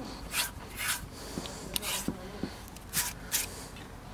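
A hand rubbing and brushing across the dusty inner face of an alloy wheel, a string of short scraping strokes.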